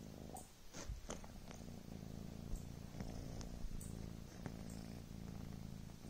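Devon Rex kitten purring steadily close up. The purr breaks off briefly about half a second in, then resumes, with a few faint clicks over it.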